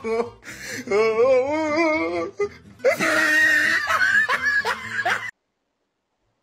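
Laughter over music, cutting off abruptly about five seconds in, followed by silence.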